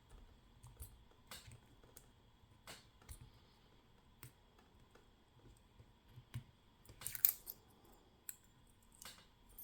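Scattered small metallic clicks and ticks from a steel shim and lock parts being worked on an American Lock S1100 padlock during disassembly. The loudest is a quick cluster of clicks about seven seconds in.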